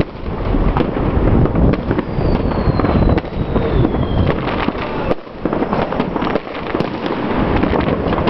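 Many fireworks going off together: a dense, continuous crackle of bangs and pops. A thin whistle falls slowly in pitch from about two seconds in to about four seconds in.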